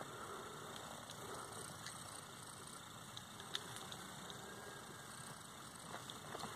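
Steady low background noise with a few faint clicks, the clearest about three and a half seconds in, as a jammed Jennings J-22 .22 pocket pistol is handled after a spent case failed to eject.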